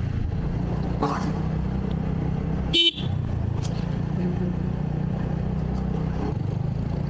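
Steady low rumble of a motorbike ride through town traffic, with one short, loud vehicle horn toot about three seconds in.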